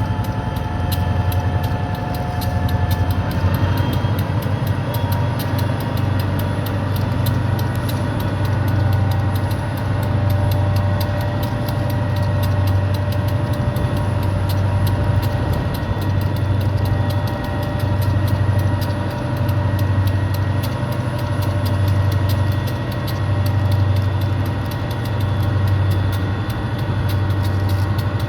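High-hood EMD GP diesel locomotive running with a steady turbocharger whine over a low engine drone that swells and fades about every two seconds. The whine steps up in pitch a few seconds in.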